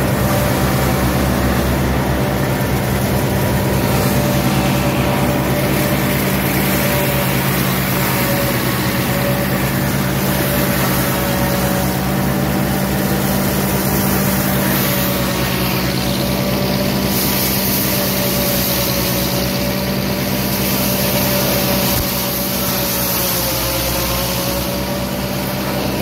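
Massey Ferguson tractor engine running steadily, driving a JF C120 AT forage harvester through its power take-off while harvesting elephant grass. It is one continuous loud drone with a high whine that wavers slightly.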